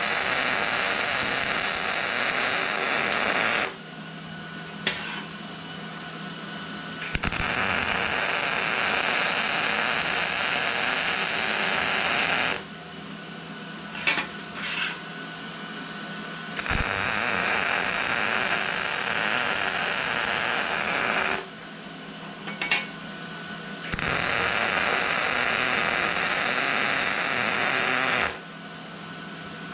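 Arc welder laying welds to fill holes in a steel bracket: four runs of steady buzzing crackle, each a few seconds long, with short pauses and small clicks between them.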